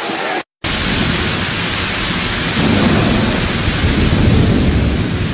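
Torrent of storm rainwater pouring through a collapsed ceiling and crashing onto the floor: a loud, dense rushing noise with a deep rumble, growing louder in the second half.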